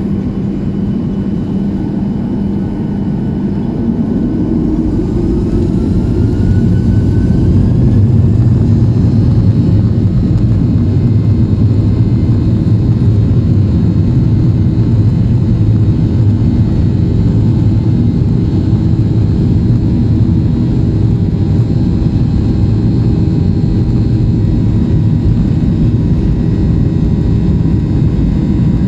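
Boeing 737-800's CFM56-7B jet engines heard from inside the cabin, spooling up: a short rising whine and a swell in the rumble over the first several seconds, then a loud, steady drone at high thrust.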